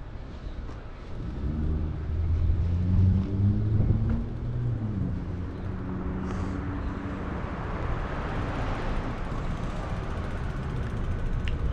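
A motor vehicle going by on the street: a low engine hum over the first half, then tyre rush that swells and fades.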